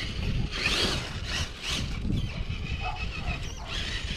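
Small electric RC rock crawler with a 550 Axe motor driving on concrete: a faint, steady high motor whine over low rumble, with brief scrapes of its tyres and chassis.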